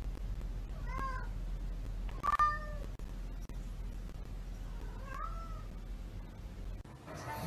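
Domestic cat meowing three times in short, arched calls: about a second in, again just after two seconds (the loudest), and once more about five seconds in, over a low steady hum.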